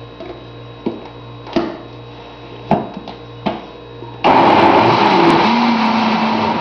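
A few light knocks, then about four seconds in a countertop blender switches on and runs loud and steady, blending a thick green-corn cake batter of corn kernels, milk, eggs and oil.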